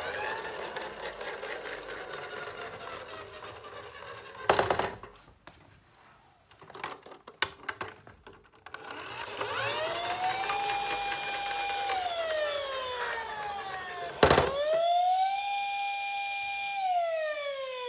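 Electronic toy ambulance siren: a pitched wail that sweeps up, holds and slides down, sounding again and again. Sharp clicks come about four and a half seconds in and again about fourteen seconds in. Between them is a quieter gap with a few small clicks.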